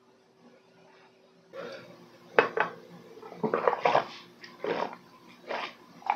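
A person gulping down a large glass of drink. Quiet for the first second and a half, then a run of loud swallowing gulps, about one every half second to a second.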